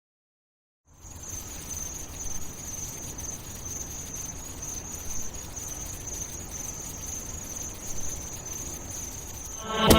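Steady, high-pitched insect chirring, like crickets, over a soft hiss. It starts after about a second of silence. Plucked notes of a pop track's intro come in near the end.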